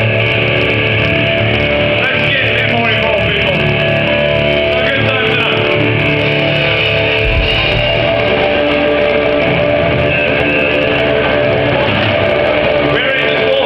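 Live rock band playing loud on stage, electric guitar and bass guitar to the fore.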